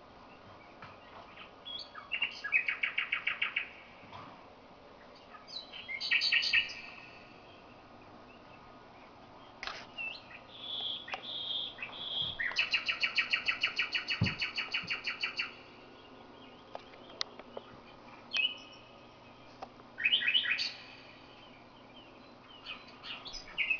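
A nightingale singing in separate phrases with pauses between them: fast runs of rapidly repeated notes, the longest lasting about three seconds in the middle, and a short series of pure piping whistles just before it.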